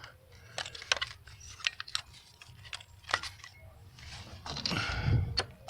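Scattered light clicks and taps of a plastic distributor cap and parts being handled and fitted onto the distributor of a 5.9 V8 under the hood, with a brief rustle near the end.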